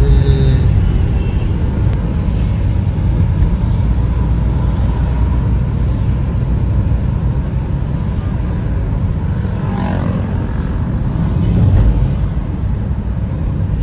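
Steady low rumble of a vehicle travelling on a city road: engine and road noise, with a brief falling tone about ten seconds in.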